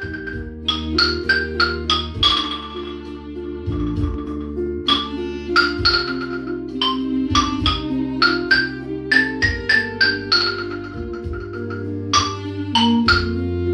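Music: a bright melody of struck, ringing bell-like notes, several a second, from a pop and noise percussion ensemble, over sustained chords and a steady bass.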